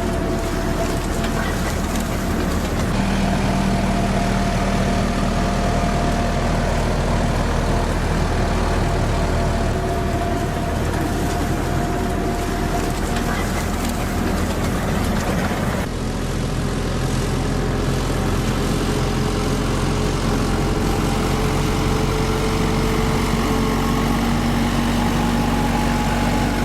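Heavy farm machinery engine running steadily. Its tone changes abruptly about 3 and 16 seconds in.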